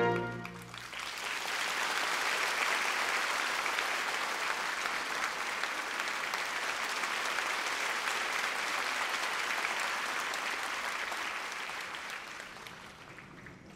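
Concert-hall audience applauding. The band's final chord cuts off right at the start; the clapping swells about a second in, holds steady, then dies away near the end.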